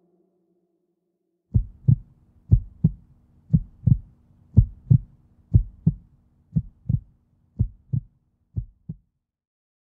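Heartbeat sound effect: eight slow double thumps (lub-dub), about one pair a second, over a faint low hum. The beats grow slightly weaker near the end and stop about a second before it.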